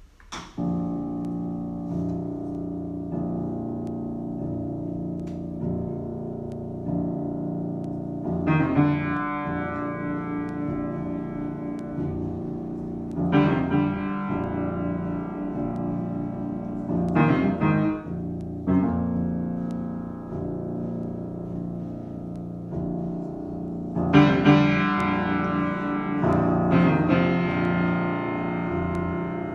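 Grand piano played solo in a slow improvisation of sustained chords, starting about half a second in. Fuller, brighter passages come in several times, most strongly a third of the way through and near the end.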